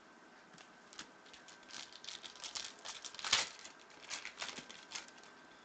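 Foil wrapper of a Panini Prizm World Cup trading-card pack crinkling as it is handled and torn open: an irregular run of crackles, loudest about three seconds in.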